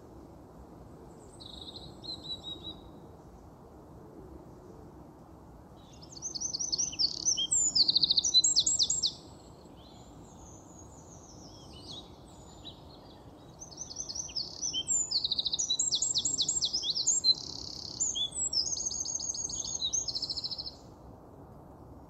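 A songbird singing: a short call, then two loud runs of rapid, varied high notes and trills, the second about seven seconds long, over a steady low background noise.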